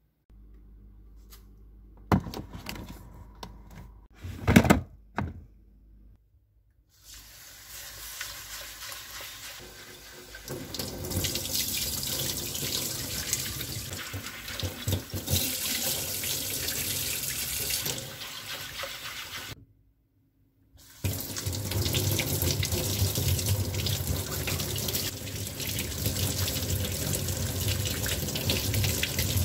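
A few sharp knocks and clicks as eggs are set into a plastic egg tray, the loudest about four and a half seconds in. Then a kitchen tap runs into a stainless-steel sink while rice is rinsed in a glass bowl under it. After a short break the tap runs again over a carrot being washed by hand.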